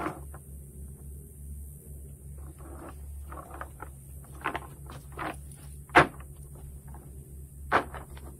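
Footsteps and knocks on the wooden boards of a fishing pier as a cast net is handled: a run of light knocks, with a sharp one about six seconds in and another near the end.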